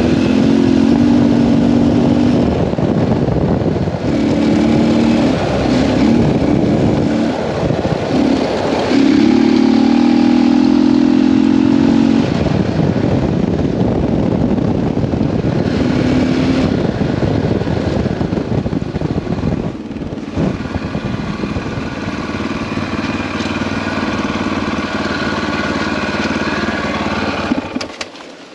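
KTM 640 Adventure's single-cylinder four-stroke engine pulling hard at speed on a dirt road, its revs rising and falling again and again with throttle and gear changes, over a rush of wind and tyre noise. Just before the end the engine sound drops away sharply.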